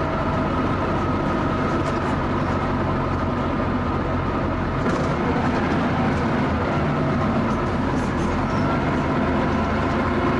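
Cummins L10 diesel engine of a Leyland double-decker bus running steadily, a constant low drone with a steady higher whine over it.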